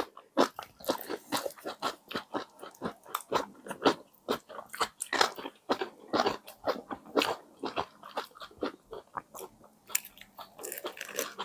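Close-miked chewing and biting of ham, egg and cheese sandwiches in soft brioche buns with lettuce, made up of many small, irregular wet mouth clicks and light crunches.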